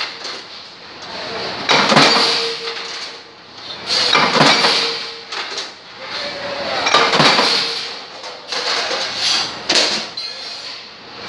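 Mechanical flywheel punch press punching hole patterns in sheet metal: a loud metallic strike roughly every two and a half seconds, then lighter knocks near the end, over a steady hum from the running press.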